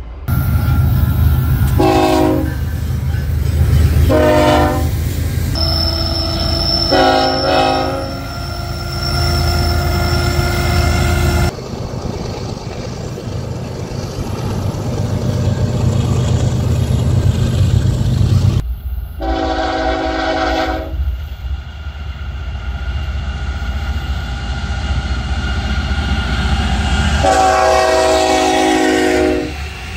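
Diesel freight trains passing close by: the low rumble of the locomotives and the steady rolling of covered hopper cars over the rails, with five chords from the locomotive air horns, the last two held longer. The sound changes abruptly twice as the recording cuts between trains.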